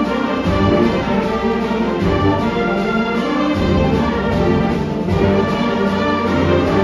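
High school concert band playing loud, full chords on woodwinds and brass, with the low bass notes shifting every second or two.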